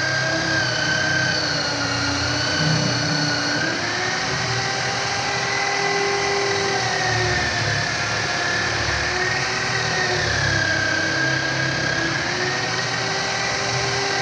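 Electric drill spinning a buffing wheel with jeweller's polishing compound, running steadily while a pocket knife scale is polished against it; the motor's pitch sags and rises again a few times as the load on the wheel changes.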